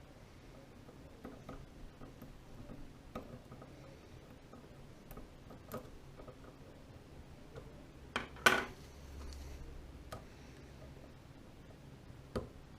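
Faint, scattered metallic clicks and ticks of lock-picking tools working inside a Kwikset Smartkey padlock, with a louder pair of clicks about eight seconds in.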